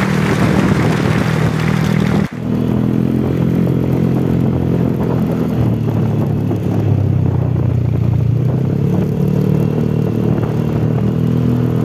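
Yamaha NMAX 155 scooter engine running with strong wind rush. About two seconds in, the sound cuts abruptly to the engine with much less wind. Its pitch then dips and rises slightly as the throttle changes.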